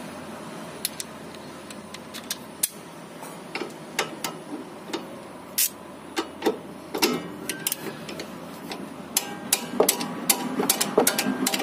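Socket ratchet on a 14 mm socket clicking as the upper nut of a car's stabilizer link is worked loose. The clicks are scattered at first and come in quick runs over the last few seconds.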